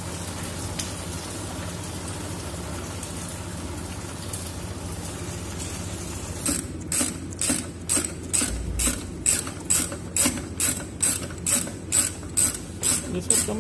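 A ratchet wrench clicking in a quick, even run of strokes, about two a second, starting about halfway through, over a steady low machinery hum.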